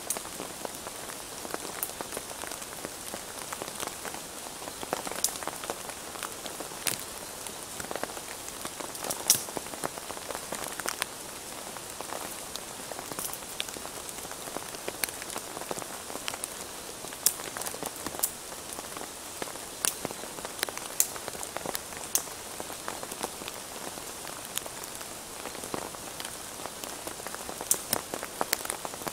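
Steady rain falling, an even hiss broken by frequent sharp hits of single drops.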